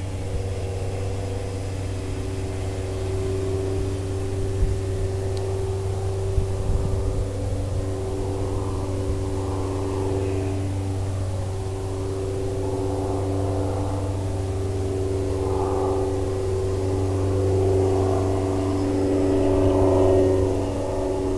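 Simulated piston-engine sound from an electronic sound-effects unit on a Hobbyzone Super Cub RC plane: a steady drone with slight swells in pitch near the end.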